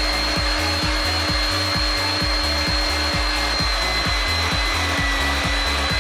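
Electric meat grinder motor running steadily with a high whine, over background music with a steady bass beat.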